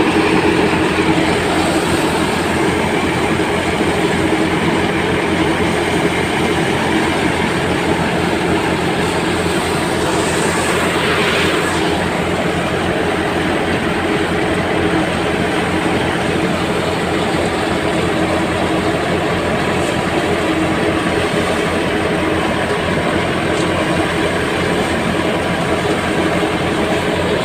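A tractor-driven crop thresher, powered by a Massey Ferguson 385 tractor, running steadily under load: a loud, continuous mechanical drone and clatter.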